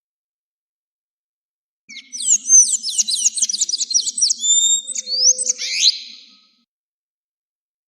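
Ultramarine grosbeak (azulejo) singing one song phrase starting about two seconds in: a fast run of repeated high chirping notes that ends in a few longer slurred notes.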